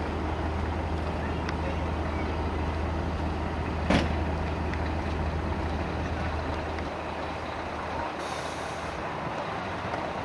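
Heavy truck engine idling with a low rumble that fades after about seven seconds. A short, sharp burst of air brake hiss comes about four seconds in, and a second hiss of air lasting about a second comes near the end.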